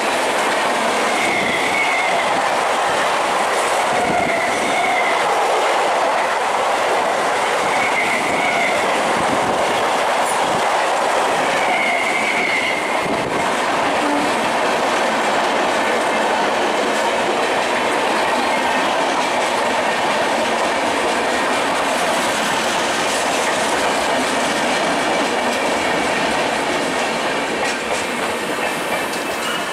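Express train's coaches passing close at speed, a steady loud rumble and clatter of wheels on the rails. Brief high tones come a few times in the first half.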